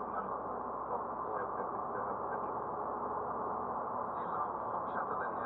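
Steady road, tyre and engine noise inside a Suzuki Swift's cabin as it drives along an unpaved road.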